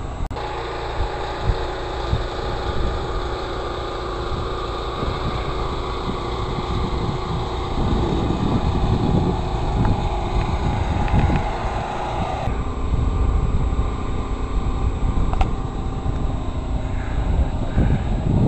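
A steady engine-like hum over an uneven low rumble, its pitch pattern shifting abruptly about twelve and a half seconds in.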